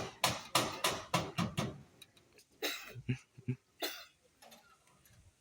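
A few quick syllables of voice, then two short coughs about a second apart.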